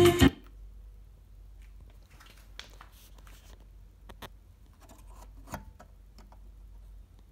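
Music through the monitor panel's speaker cuts off a fraction of a second in. After that come faint scattered clicks and scrapes: a green Phoenix-style terminal-block plug being handled and pushed into a channel input on the back of the Wohler audio monitor panel.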